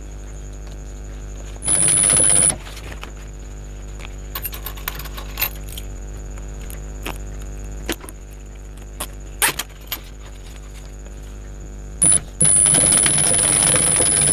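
Industrial high-speed sewing machine stitching a zipper in two runs, a short one about two seconds in and a longer one near the end, each with a high whine. Between the runs there is a steady low hum and clicks from the zipper and fabric being handled.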